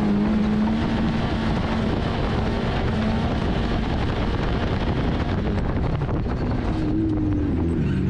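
Peugeot 106 autocross car heard from inside its cabin: the engine held at steady high revs under acceleration for about three seconds, then a loud rushing noise from the car at speed on the dirt. Near the end the engine drops to a lower, wavering note as the car slows.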